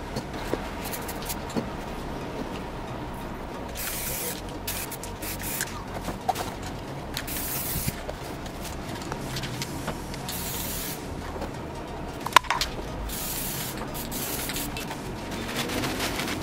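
Aerosol spray paint cans hissing in a series of short bursts as paint is sprayed onto paper, with a single sharp click about twelve seconds in.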